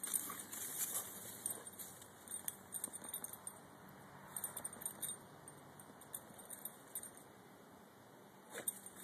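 A dog digging into loose dirt with its front paws at a mole hole: faint scratching, with its collar tags jingling in irregular bursts.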